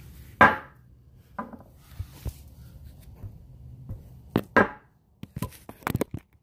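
Scattered knocks, clunks and clicks from handling tools, parts and the camera near the wheel hub: a sharp knock about half a second in, another a little after four seconds, and a quick run of clicks near the end.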